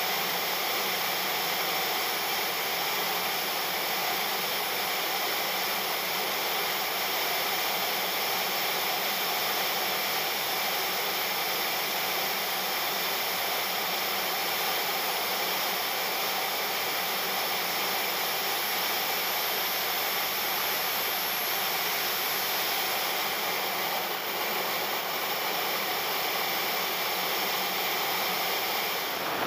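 JetCat P-160SE model jet turbine running steadily in flight, a constant whine over heavy air rushing past, heard from on board the model.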